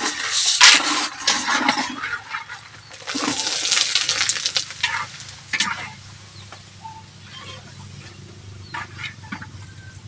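Hot oil in a wok sizzling in two loud surges as macaroni is lowered in on a metal wire skimmer and stirred, with sharp clicks of the skimmer against the wok; the frying settles to a quieter hiss after about five seconds.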